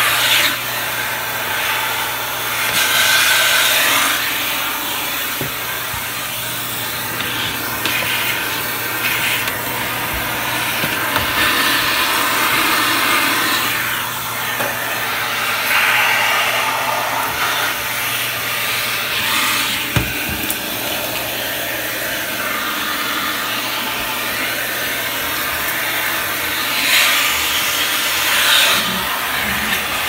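Vacuum cleaner running steadily through a hose and narrow floor nozzle, sucking up clumps of dog hair along a hardwood floor edge. The rush of air swells and eases as the nozzle moves and catches hair, with one sharp tap of the nozzle about two-thirds of the way through.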